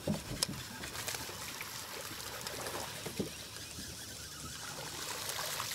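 Water splashing and trickling at the lake surface as a hooked bass is reeled in toward the boat, a little stronger near the end.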